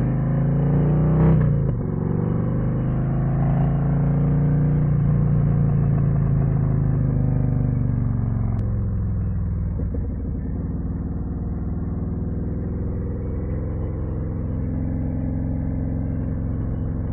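Harley-Davidson Street Glide ST's V-twin engine running through a custom C3 Vtwin 2-into-1 exhaust while riding. It revs up briefly about a second in and holds a steady cruise, then eases off to a lower, steady note from about eight seconds in.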